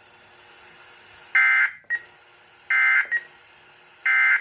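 NOAA Weather Radio SAME end-of-message data bursts: three short, buzzy digital squawks about 1.3 seconds apart, each followed by a brief blip, over faint radio hiss. They signal the end of the alert broadcast.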